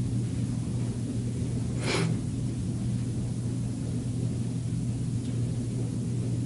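Steady low hum over a background hiss, with one brief soft rush of noise about two seconds in.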